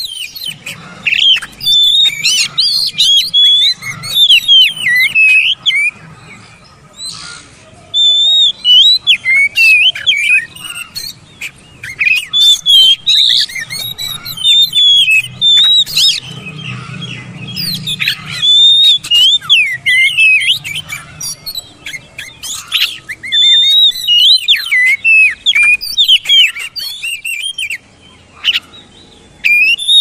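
Oriental magpie-robin (kacer) singing loudly: rapid, varied runs of whistles, chirps and harsher notes in bursts of several seconds, broken by short pauses.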